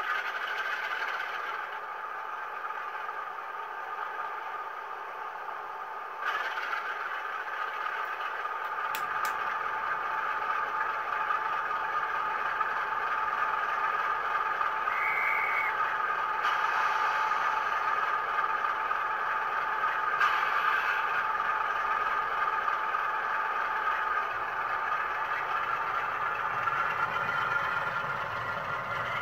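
OO gauge model train running along the track: a steady motor whir with clatter and rattle from the wheels on the rails, getting a little louder about six seconds in.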